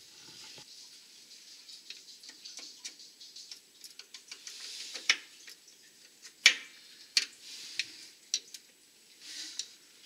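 Screwdriver and hands working on the sheet-metal housing of an oil furnace while the clips on the back are tightened: scattered metal clicks and taps, the loudest about six and a half seconds in, with light scraping and rustling between them.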